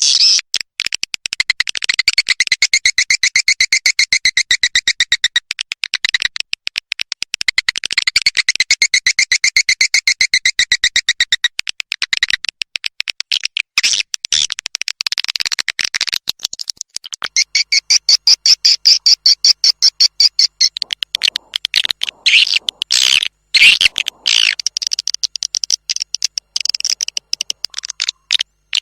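Recorded swiftlet calls played as a lure track for swiftlet farming: long runs of rapid, buzzy chattering trills made of many fast clicks, in phrases a few seconds long, shifting to a higher trill partway through and then to shorter broken calls near the end.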